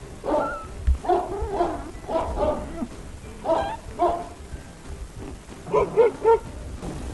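A small domestic animal giving a series of short, pitched cries in separate calls, with three quick ones in a row near the end.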